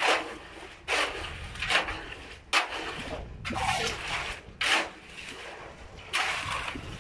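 Shovels scraping and scooping through wet concrete mix on a concrete slab, mixing by hand. There is a short gritty scrape about once a second, one after another.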